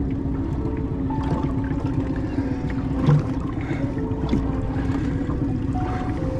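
Water slopping and gurgling against the hull of a small boat on the sea, with wind on the microphone.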